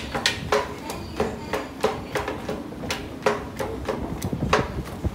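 Running footsteps of shoes striking a hard floor, about three quick, even strides a second.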